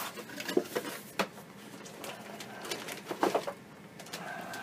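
Cardboard box and packaging being handled: a few short knocks, scrapes and rustles as the router is lifted out of its cardboard insert in a plastic bag.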